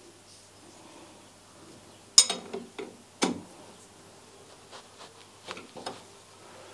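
Sharp metal-on-metal clinks of a long steel bar being handled against and set into a steel toolpost clamp: a cluster of four knocks about two to three seconds in, the first the loudest, then a few lighter ticks.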